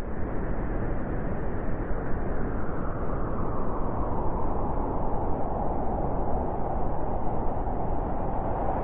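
Steady wind blowing, an even rushing noise without gusts or breaks, growing a little brighter about halfway through.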